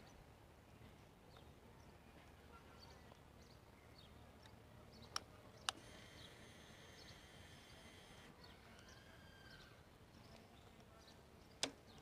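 Near silence with no engine running: the Royal Enfield Classic 350 does not start because it stands on its side stand, which cuts out starting. Three sharp clicks stand out, two about half a second apart around the middle and one near the end.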